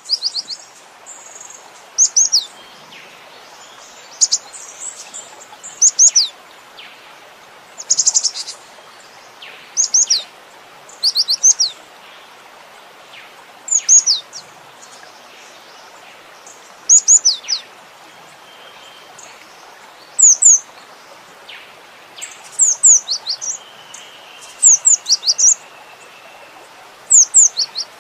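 Cinereous tit (gelatik batu) singing: groups of two or three high, sharply falling whistled notes repeated every couple of seconds, coming faster near the end, over a steady hiss.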